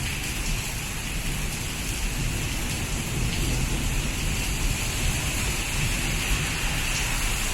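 Steady monsoon rain falling, an even hiss, with a low rumble underneath that grows a little stronger about two seconds in.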